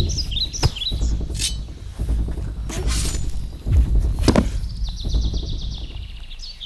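Birds chirping over a low wind rumble on the microphone, broken by a few scuffling thumps from two people wrestling and falling onto grass, the loudest thud a little over four seconds in. A thin high buzz comes in near the end.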